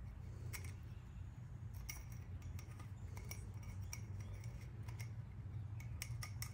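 Light, irregular clicks and ticks as a rubber O-ring is stretched and worked onto a metal cartridge oil filter housing by oily fingers, over a steady low hum.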